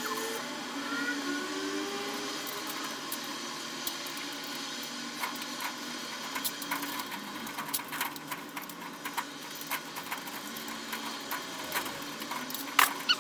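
Renovation noise: a steady mechanical whirr like a power tool, its pitch sliding up and down during the first couple of seconds, then many scattered sharp clicks and knocks, with one louder knock near the end.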